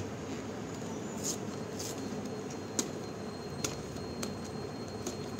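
Paperboard medicine carton being handled and its end flap opened: scattered sharp little clicks and rustles of cardboard over a steady background hum.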